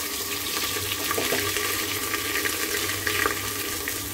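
Ground spice masala hitting hot mustard oil in a pressure cooker and sizzling with a steady hiss, with a couple of light knocks about a second in and near the end.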